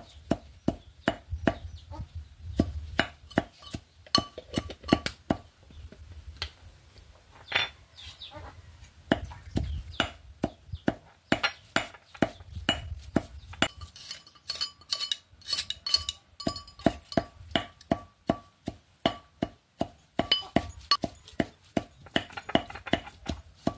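Regular sharp knocks on a flat stone slab, about two to three a second, as food is worked by hand on the stone for cooking.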